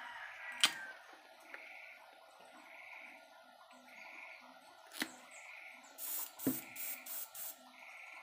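Airbrush spraying acrylic paint in four short hissing spurts, starting about six seconds in. Two sharp clicks come earlier, one about half a second in and one near five seconds.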